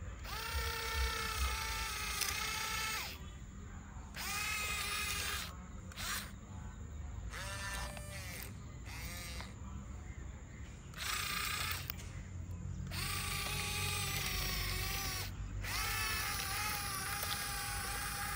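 Yigong RC excavator's small electric motors whining in bursts of one to three seconds as the boom, arm and bucket move, each burst rising in pitch as it starts and then holding steady.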